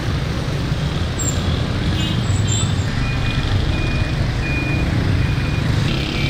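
Busy street traffic: engines of cars and motorcycles running and passing with a steady low rumble. Partway through, four short high beeps repeat at even intervals.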